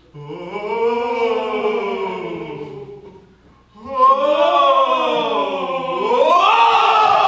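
Voices singing long, wordless notes that slide up and down, in two phrases with a short break about three seconds in; the second phrase rises and grows louder near the end.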